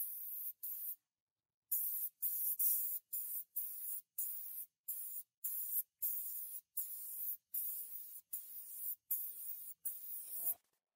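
Gravity-feed air spray gun hissing as it sprays paint, in short bursts about two a second with brief silent gaps between trigger pulls. There is a longer pause about a second in, and the spraying stops just before the end.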